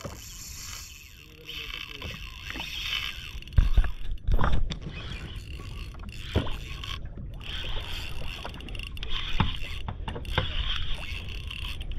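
Steady wind and water noise aboard a fishing boat at sea, with a cluster of loud knocks and thumps about four seconds in and a few lighter knocks later.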